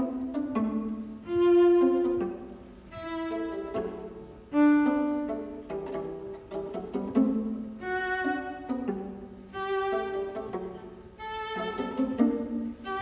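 String quartet of two violins, viola and cello playing bowed notes. The notes are held and change every second or so, and the music swells loudly about one second and about five seconds in.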